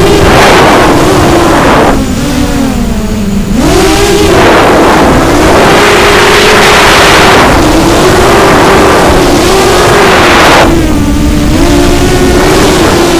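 Racing quadcopter's brushless motors and propellers whining, the pitch wavering up and down with the throttle over a loud rush of air. The rush eases and the whine drops twice, about two seconds in and again near the end, as the throttle is backed off.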